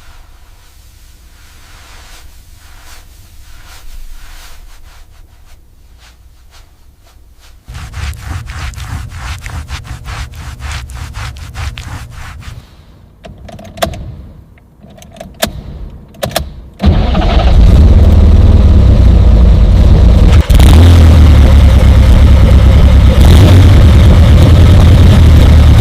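Car engine starting: faint ticking, then a stretch of cranking from about eight seconds in, a few short sputters, and the engine catches about seventeen seconds in and runs loud and steady.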